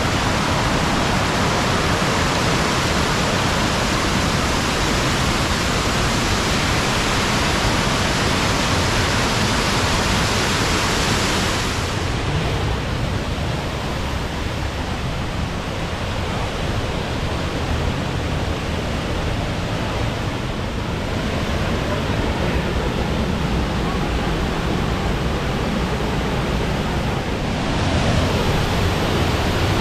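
Waterfall: a steady, loud rush of falling water. The hiss dulls a little about twelve seconds in and brightens again near the end.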